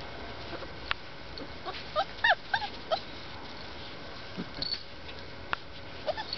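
Young puppies whimpering and yipping: a cluster of short, high cries that rise and fall, about two seconds in, and a few more near the end. Two sharp clicks come in between.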